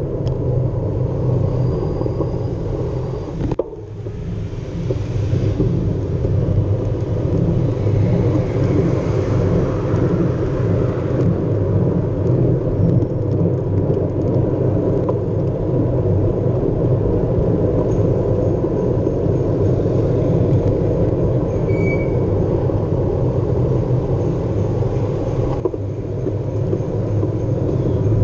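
Wind and road noise on the microphone of a bicycle-mounted camera while riding through traffic: a steady low rumble with a brief drop in level about three and a half seconds in.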